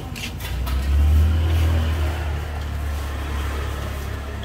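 A motor vehicle passing close by: a low engine rumble swells about a second in, then fades slowly. A few faint clicks sound near the start.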